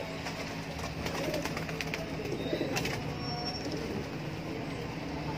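Homing pigeons cooing at the loft's trap entrance, with a few sharp clicks, over a steady low hum.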